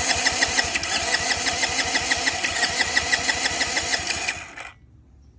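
50cc Chinese four-stroke dirt bike engine being cranked over by its starter with the throttle held open, without firing, for a compression reading: a steady, rapid chugging that cuts off suddenly about four and a half seconds in.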